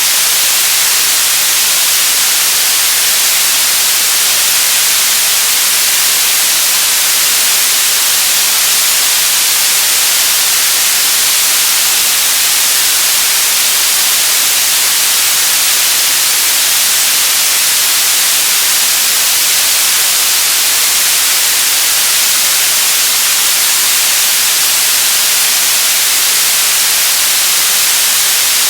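Television static: a steady, loud hiss of untuned-TV white noise, bright and even, strongest in the high treble, unchanging throughout.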